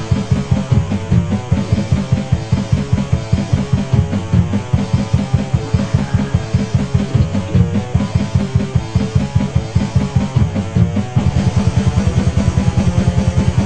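Muffled, lo-fi rock song with a fast, driving drum-kit beat under bass and guitar; the groove shifts about eleven seconds in.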